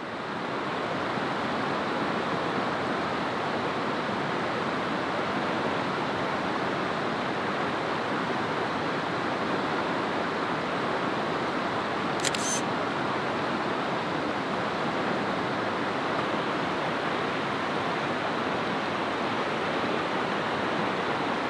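Rushing mountain stream water running over rocks, a steady even hiss that fades in at the start. About twelve seconds in, one brief sharp high-pitched sound.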